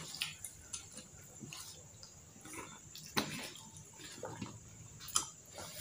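Close eating sounds: wet chewing and smacking, with scattered light clicks of metal forks against a plastic sauce container. One louder wet sound about three seconds in.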